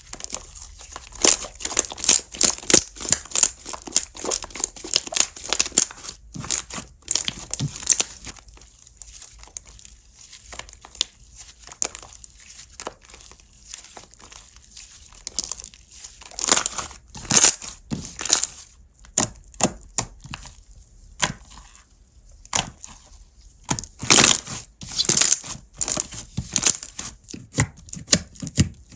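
Slime being squeezed, stretched and poked by hand, giving dense runs of sharp crackling clicks and pops that come in bursts with short lulls between.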